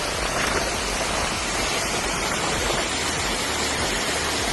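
Steady, even rush of heavy water, as from pouring rain or floodwater, with no breaks or changes.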